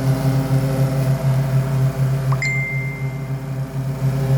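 Zero-turn lawn mower engine running at a steady drone while mowing. A short, thin high-pitched tone sounds about halfway through.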